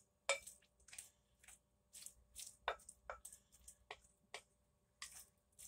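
Wooden spoon stirring zucchini ribbons and mashed avocado in a glass bowl: a string of faint, irregular clicks and taps, a few each second.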